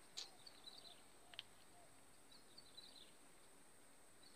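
Near silence with faint bird chirps in two short twittering runs, and two soft clicks in the first second and a half.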